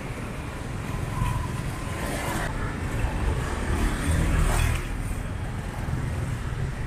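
Street traffic: motorbikes and cars passing with a steady low rumble, two of them going by louder about two seconds and four and a half seconds in.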